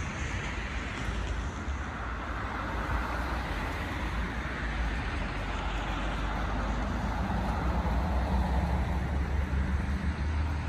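CAF Urbos 100 light-rail tram approaching along the track, its running noise growing slowly louder, over steady road traffic.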